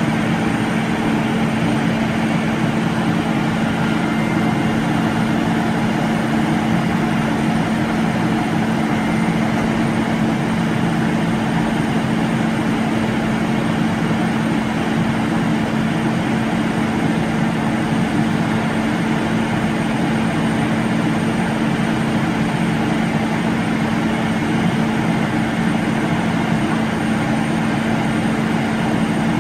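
Crane truck's diesel engine running steadily at raised revs to drive the Hiab knuckle-boom crane's hydraulics: a constant, unchanging drone with one strong steady hum.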